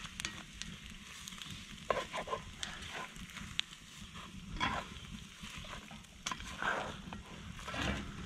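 Slotted spatula stirring and scraping scrambled eggs around a cast-iron skillet as they fry over a campfire, with scattered sharp taps and scrapes of the spatula on the pan.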